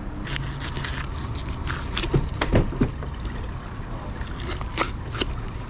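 Knife cutting and scraping into a yellowfin tuna at the gills: a series of short, sharp scraping strokes, loudest about halfway through, over a steady low hum.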